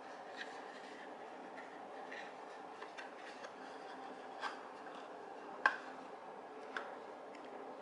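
Cardboard packaging handled by hands: a few scattered soft clicks and taps, the sharpest about three-quarters of the way in, over faint steady room tone.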